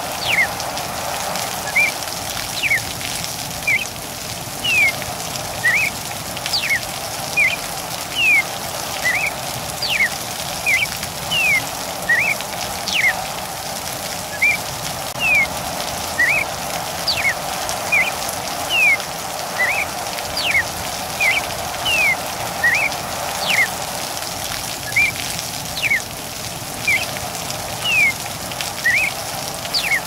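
Steady rain hiss with a cardinal calling over it: a continuous string of short slurred whistles, some rising and some falling, about one or two a second.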